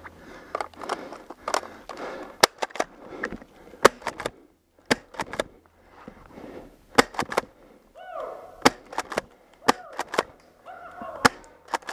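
Airsoft shotguns firing during play: a string of sharp, irregular pops, bunched at times into several in a second.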